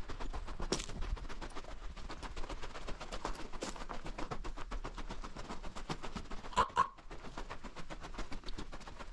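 Footsteps crunching on the sandy gravel floor of a slot canyon: a dense, irregular run of sharp crunches and clicks, with a louder crunch about two-thirds of the way through.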